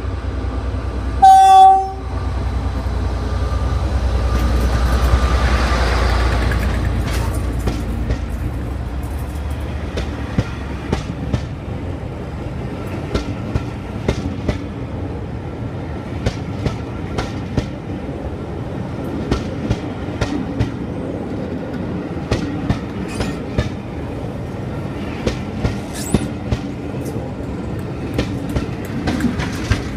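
A West Coast Railways diesel locomotive gives one short, loud horn blast about a second in. Its engine rumble then swells as it passes, and the charter coaches roll by with repeated clicking of wheels over rail joints. A second diesel at the rear brings the rumble back near the end.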